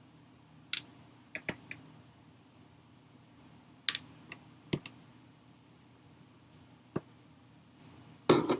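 Irregular sharp clicks and taps of a screwdriver and small screws on a laptop's plastic bottom panel as the screws are taken out, with a louder clatter near the end.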